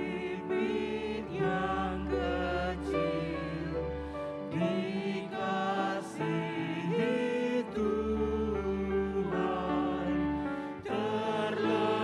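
Three voices singing an Indonesian hymn together through microphones, with piano accompaniment and deep held keyboard bass notes that drop out and return twice.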